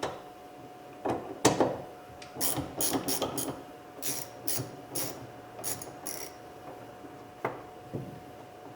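Socket ratchet clicking in short bursts as a 10 mm socket loosens the bolt holding the interior door handle, with a few knocks of the tool against the door.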